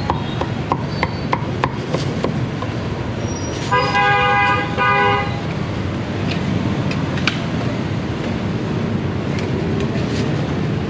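A cleaver chops roast pork on a wooden chopping block, about two strokes a second for the first couple of seconds. About four seconds in, a vehicle horn honks twice in quick succession, over steady street traffic noise.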